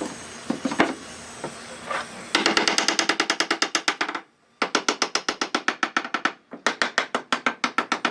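Rapid, evenly spaced knocking, about ten sharp strikes a second, in three runs with short abrupt breaks, after a few scattered knocks at the start; a striking or impact tool on wood.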